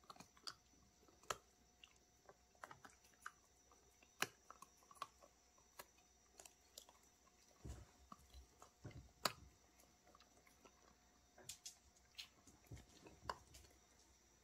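Dogs chewing and gnawing pieces of dried beef liver jerky: irregular sharp clicks and crunches of teeth on the tough jerky, about once or twice a second, with a few duller knocks near the middle.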